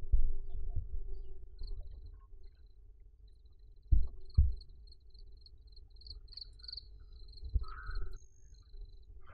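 A high-pitched insect trill, pulsing steadily and growing louder around six seconds in. Two dull low thumps come about four seconds in, with rustling near the start.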